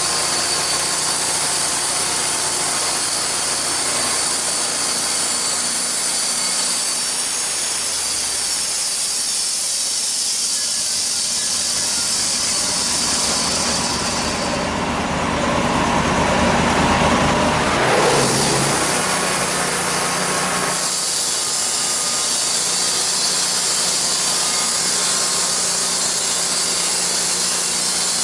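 Homemade sawmill running steadily, its engine-driven blade cutting through a log. About halfway through, the sound changes and grows louder for several seconds, then settles back to the steady cutting sound.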